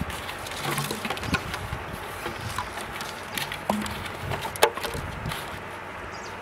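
Empty plastic bottles being handled and tied together with string, giving a scatter of light clicks and knocks, with one sharper knock about four and a half seconds in.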